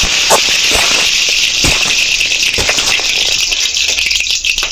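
Bay leaves and whole spices frying in hot mustard and refined oil in a kadhai: a steady sizzling hiss with scattered crackles and a few louder pops.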